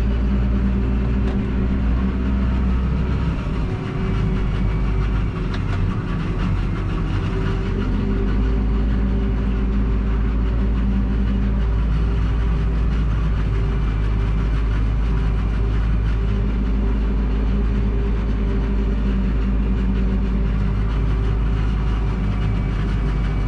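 Steady drone of a Massey Ferguson 7718S tractor's six-cylinder diesel engine, heard from inside the cab while the tractor drives at an even speed. The harvesting machinery running alongside is mixed in. A few faint clicks and rattles come through in the first few seconds.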